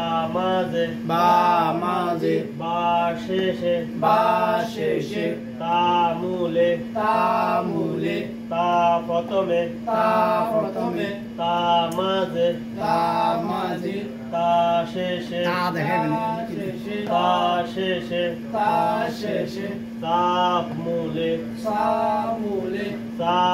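A man reciting Arabic words and letter forms aloud in a rhythmic, sing-song chant, one short phrase about every second, over a steady low hum.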